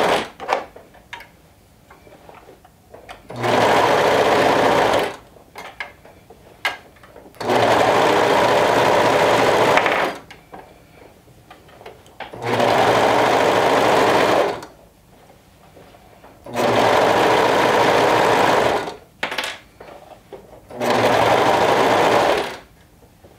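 Brother 1034D overlock serger stitching a seam through several layers of fabric in five short stop-and-start runs of two to three seconds each. Soft fabric-handling clicks fill the pauses between runs.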